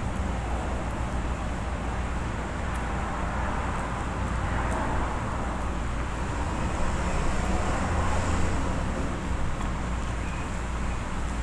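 Steady background rumble and hiss with a low hum and a faint high whine, swelling slightly near the end, with a few faint small clicks over it.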